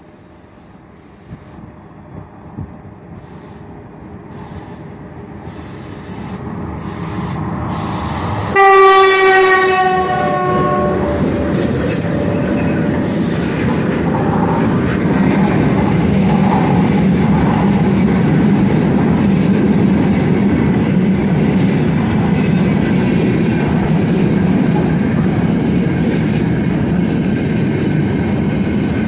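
3ES5K 'Ermak' three-section electric locomotive hauling a freight train, approaching and passing close by. Its running noise grows for about eight seconds, then the locomotive's horn sounds one blast of about two and a half seconds. The steady rumble and clatter of the freight wagons rolling past follow.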